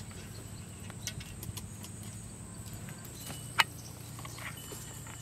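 A few light clicks of a metal spoon against an aluminium tray as grape leaves are stuffed and folded by hand, with one sharp clink about three and a half seconds in.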